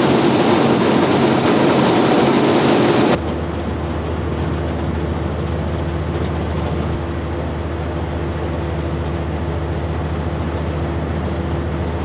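Loud rushing noise of a warship's churning wake over its engines. About three seconds in it cuts off abruptly to a steady low engine drone with a hum.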